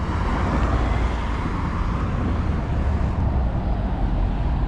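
Road traffic on a city street: the steady low rumble and tyre noise of passing cars, swelling in the first couple of seconds as a vehicle goes by.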